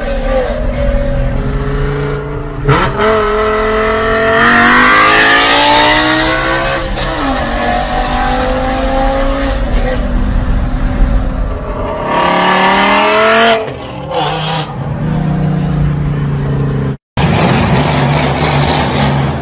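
A loud-exhaust car engine accelerating hard through the gears: its pitch climbs, drops sharply at each upshift, then climbs again, several times over. After a short cut-out near the end, a second car's engine runs at a steady low exhaust note.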